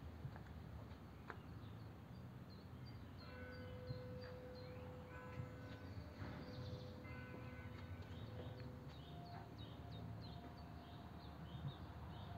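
Faint outdoor ambience: small birds chirping over a low steady background rumble. A steady humming tone comes in about three seconds in, shifts pitch about nine seconds in and fades out.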